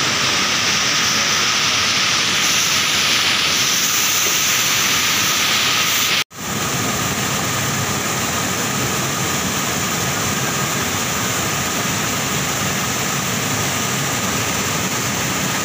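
Steady rushing of a large waterfall, white water pouring over a wide rock ledge. The sound drops out for an instant about six seconds in and comes back slightly duller.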